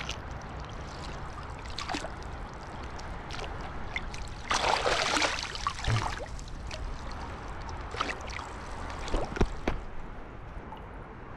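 Water splashing and swirling as a landing net is worked through shallow sea water and a sea trout is scooped in, thrashing in the mesh. A loud stretch of splashing comes about four and a half seconds in, then a few sharp splashes near the end.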